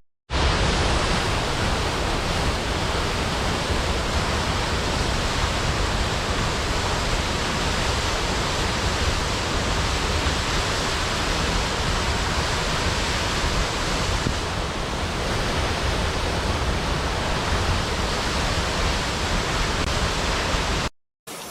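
Steady rush of flowing water with no rhythm, cut to silence for a moment just after the start and again just before the end.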